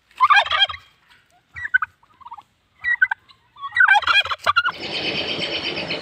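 Domestic turkeys gobbling: quick warbling gobbles with softer calls between them, the biggest right at the start and again about four seconds in. Near the end it cuts to a steady hiss with high chirping.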